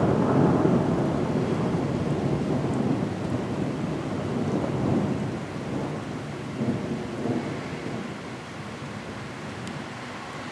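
Rolling thunder, loudest at the start, swelling again a few times and fading out over the last few seconds, with rain falling throughout.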